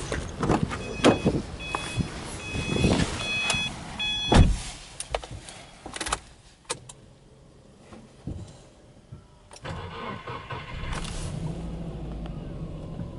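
Car door handled and shut with a heavy thud about four seconds in, with a repeated high electronic beep before it. About eleven seconds in, the Subaru Impreza S-GT's turbocharged flat-four engine starts and settles into a steady idle.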